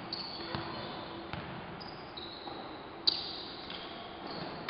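Basketball bouncing on the gym court floor as a player dribbles: a few scattered thuds, with one sharper, louder bang about three seconds in.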